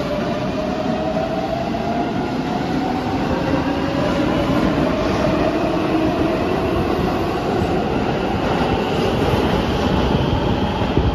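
Keihan electric commuter train pulling out of an underground station: the traction motors give a whine that rises steadily in pitch as it accelerates, over the rumble of wheels on the rails.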